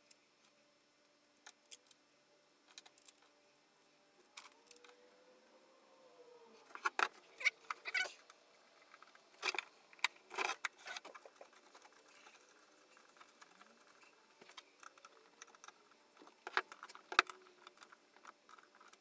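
Small metal hardware (nuts, bolts and hand tools) clinking and rattling as it is handled while assembling a kit, in scattered clicks with a few louder clatters in the middle.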